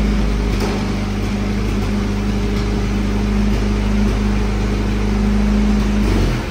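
Jeep engine idling steadily with an even low hum, then cutting off near the end.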